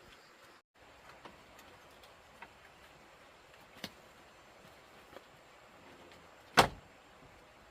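A few light clicks, then one sharp knock about six and a half seconds in, the loudest sound here, over a quiet steady background.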